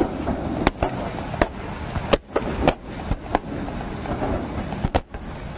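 Gunfire at night: about seven sharp shots at irregular intervals over a few seconds, over a steady rushing background noise.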